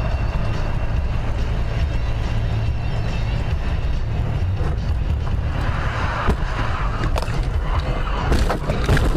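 Steady low road and engine rumble of a car at motorway speed. From about six seconds in, a string of sharp knocks and bangs follows as the car crashes and spins.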